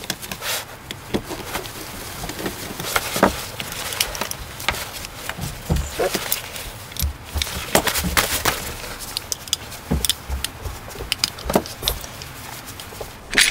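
Irregular small metallic clicks and taps: a screwdriver backing the cover screws out of a mortise lock case, and the metal lock case being handled as its cover plate is worked loose.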